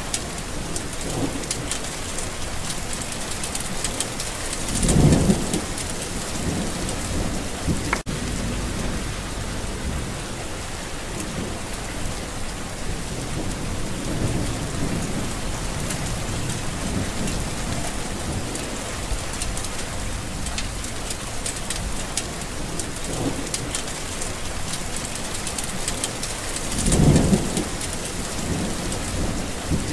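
Steady heavy rain hissing down, with rolls of thunder underneath. Two louder low rumbles come about five seconds in and again near the end.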